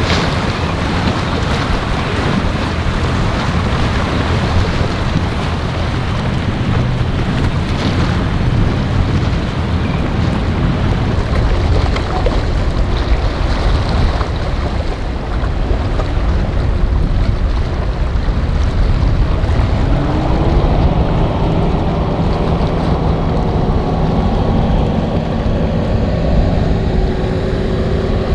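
Motorboat engines running over the wash of waves, with wind buffeting the microphone; about two-thirds of the way in, an engine's pitch climbs steadily as it speeds up.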